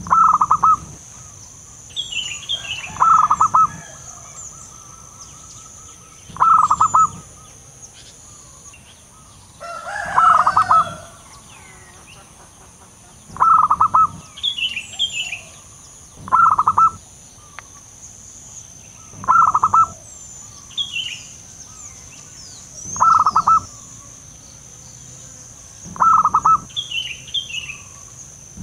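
Zebra dove (local perkutut) cooing: a short, rapid, staccato coo repeated about nine times, roughly every three seconds. Smaller birds chirp at a higher pitch between the coos.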